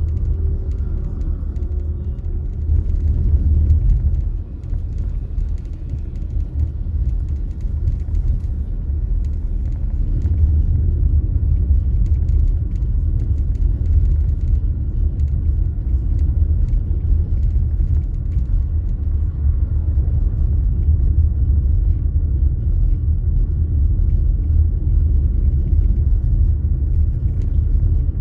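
Steady low rumble of a car being driven: engine and road noise. It dips briefly about four and a half seconds in, then runs evenly.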